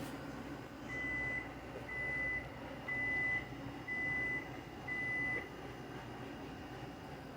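Five electronic alert beeps at one high pitch, each about half a second long and about one a second, from a TV broadcast's warning tone, over a low background hiss.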